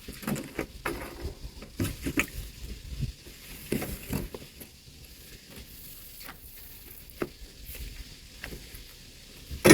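Scattered rustles, light clicks and knocks of sailboat rigging being handled, with a sharp click just before the end. A low wind rumble runs on the microphone for the first few seconds.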